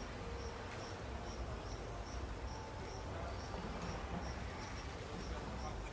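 An insect chirping steadily: short, high chirps repeating evenly a little over two times a second, over a constant low rumble.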